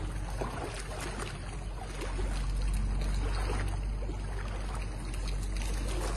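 Steady wash of water over a flooded, muddy yard, with a low rumble underneath.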